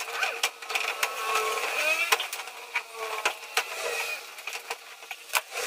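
Irregular light knocks and taps of a Hardiflex fibre-cement ceiling board being pushed and fitted into place by hand.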